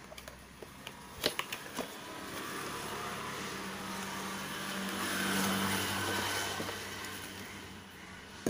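A few light clicks of cardboard handling as the bulb box is opened. Behind them a passing motor vehicle swells up over a few seconds, is loudest a little past the middle, and fades away.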